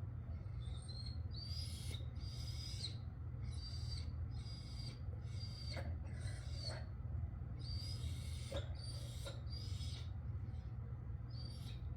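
Labrador retriever whining in short, high, thin, whistle-like cries, about one a second. These are demand whines from a dog being made to hold a stay on his place bed. A steady low hum runs underneath.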